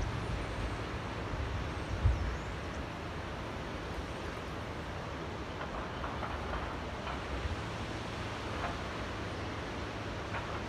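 Small waves lapping in a tidal channel: a steady wash of water with a low rumble, and a low thump about two seconds in.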